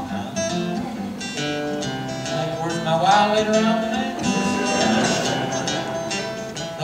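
Acoustic guitar played solo, a run of picked notes and chords with no singing.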